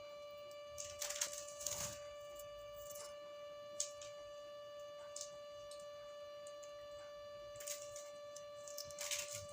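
Grey parrot eating, with a few short crunching and scraping sounds from its beak at the food and one sharp click near the middle, over a steady high-pitched hum.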